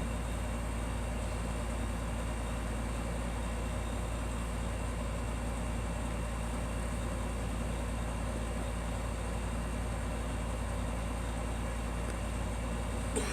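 Steady low rumble with an even hiss, unchanging and with no distinct sounds in it.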